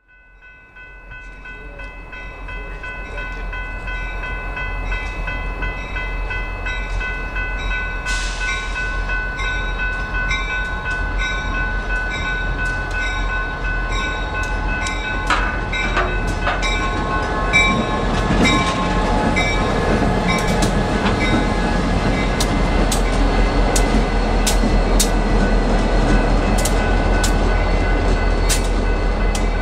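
Railroad grade-crossing warning bells ringing in a steady repeating pattern, the crossing signals activated by an approaching train. Over the second half a diesel locomotive's engine grows louder as it nears. Near the end its wheels click over the rails as it rolls through the crossing.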